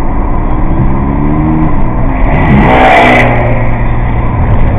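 Motorcycle engine revving hard as it accelerates past close alongside the car, heard from inside the cabin over steady road noise. The engine note climbs over the first two seconds and is loudest about three seconds in, as the bike draws level.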